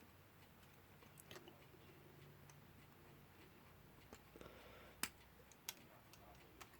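Near silence broken by a few small clicks of clock movement parts being handled and fitted. The clearest click comes about five seconds in, followed shortly by a second.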